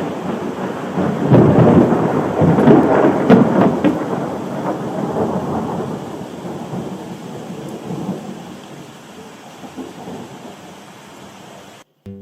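Thunder rumbling over steady rain. The rumble swells about a second in and dies away over the following seconds, and the sound cuts off abruptly near the end.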